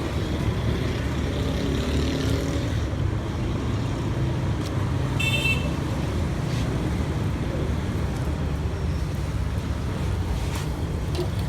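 Steady street traffic rumble, with one short high-pitched horn toot about five seconds in.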